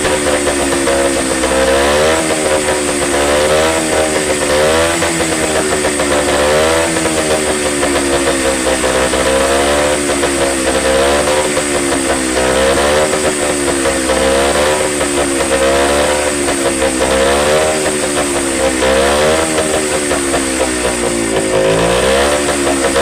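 Motorcycle engine running with the throttle opened and closed again and again, its pitch rising and falling about every one and a half seconds.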